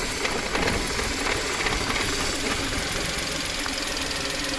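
VW petrol engine running steadily with a fast, even ticking, the knocking and over-racing idle of a lean-running engine. The mechanic puts the lean fault code P0171 down to a leaking PCV valve diaphragm letting unmetered air into the intake.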